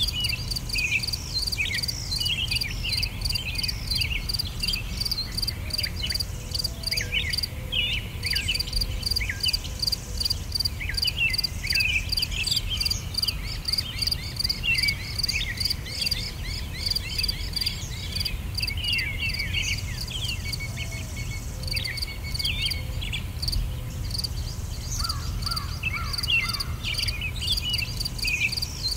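Outdoor nature ambience: an insect trilling in a steady pulsing rhythm, with many short, quick bird chirps over it and a low steady rumble beneath.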